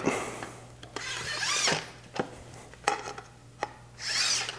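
A cut wooden board and a digital tape measure being handled: scattered light knocks and clicks, and two rubbing, scraping sweeps, about a second in and again near the end, as the tape blade is drawn out along the board.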